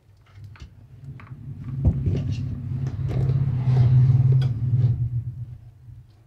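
A low rumble swells over about three seconds and fades, with light clicks and rustles as the LCD panel and its data cable are handled.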